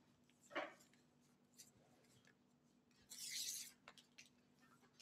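Near silence while banana leaves are handled for wrapping suman: a soft knock about half a second in, then a brief crinkly rustle of banana leaf a little after three seconds, over a faint steady hum.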